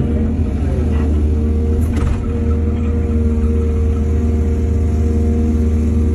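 Heavy earthmoving machine's engine running steadily, with a couple of faint knocks about one and two seconds in.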